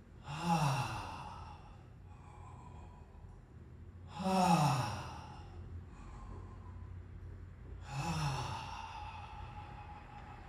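A man breathing deeply through the mouth while holding a strained back-arching stretch: three loud, voiced out-breaths like sighs, each about a second long and falling in pitch, roughly every four seconds, with quieter airy in-breaths between them.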